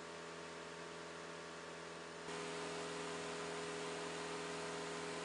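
Steady machine hum of the EGR-cooler flushing device's pump running as it draws the cleaning solution through, growing a little louder about two seconds in.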